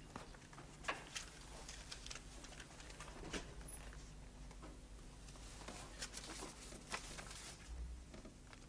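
Faint, irregular crackling and rustling of paper letters being set alight and burned in a fireplace grate, a scatter of small crackles and crinkles over a low room hum.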